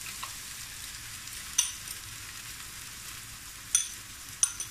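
Beaten eggs, zucchini and onion sizzling in a hot oiled frying pan as the eggs go in: a steady frying hiss, with three sharp clicks.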